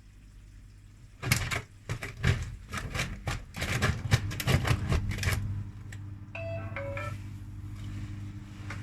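Washing machine in a suds-lock spin: a low steady hum, then a few seconds of loud, irregular knocking and clattering. A short series of electronic beeps follows, then a steady hum with a faint hiss.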